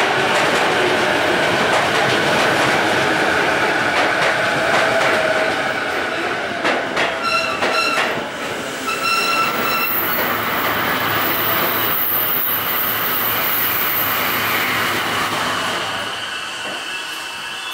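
Electric commuter train pulling in along the platform and braking to a stop: running noise from wheels and motors, then a few short high squeals about seven to nine seconds in as it halts. A quieter standing hum follows.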